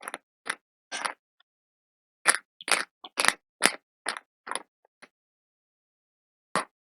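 Slate wafers being bitten and chewed: sharp, dry crunches with dead silence between them. There are a few crunches at the start, about seven more from about two seconds in, and one more near the end.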